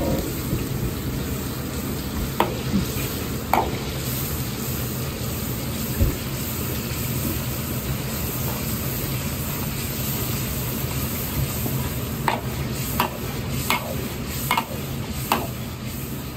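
Metal ladle stirring a simmering minced-pork sauce around an iron wok, the sauce sizzling and slopping, over a steady low rumble. The ladle clinks sharply against the wok a couple of times early and in a quick run of five near the end.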